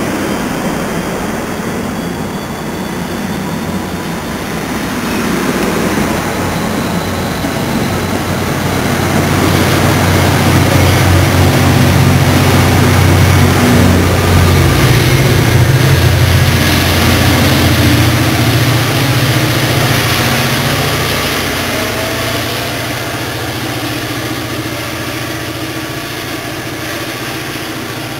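NJ Transit train passing close by with its GP40PH-2B diesel locomotive: the cars roll past first, the locomotive's engine grows louder and is loudest in the middle, then fades as the train pulls away.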